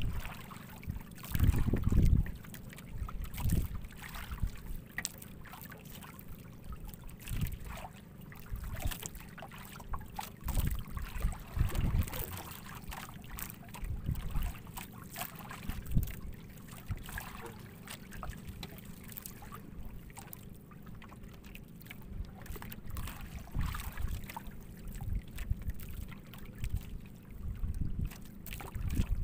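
Wind buffeting the microphone over water sloshing against the hull of a small outrigger boat, with scattered light knocks.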